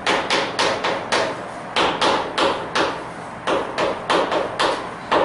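Chalk tapping and scraping on a chalkboard while writing Korean characters: an irregular run of short, sharp knocks, several a second, one for each stroke.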